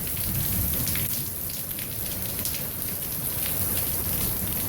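Heavy rain pouring down steadily in a severe thunderstorm, with many close drops splashing.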